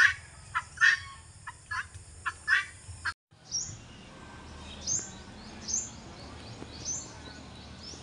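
Birds calling outdoors: first a run of loud, short calls, then, after an abrupt cut about three seconds in, high, thin chirps roughly once a second over a low steady rumble.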